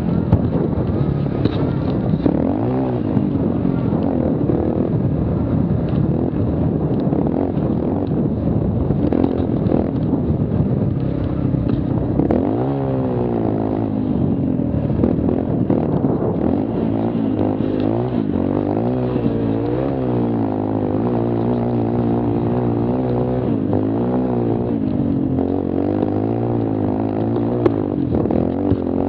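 Mini quad (youth ATV) engine running hard over a dirt trail, its pitch rising and falling again and again as the throttle is opened and closed.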